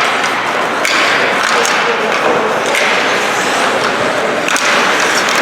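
Ice hockey play echoing in an ice rink: skate blades scraping the ice, with sharp knocks of sticks and puck about four times.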